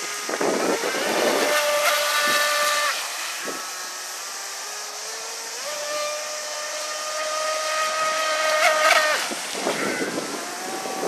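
Electric RC speedboat's brushless inrunner motor (3660-size, 3060 kV, water-cooled) whining at speed over a steady hiss. The whine holds for a moment, drops back about three seconds in, then climbs again and holds before cutting off about nine seconds in.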